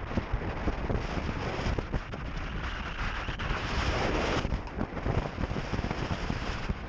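Strong wind buffeting the microphone: a rough, uneven rumble with gusts that swell around the middle.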